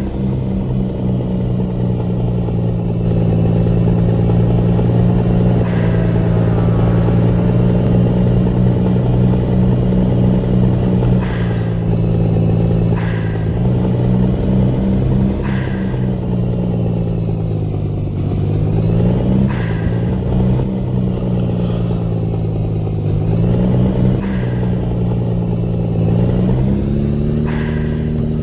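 Truck engine running under way with a steady drone, its pitch sagging and climbing again a couple of times as engine speed changes. A few sharp clicks stand out now and then.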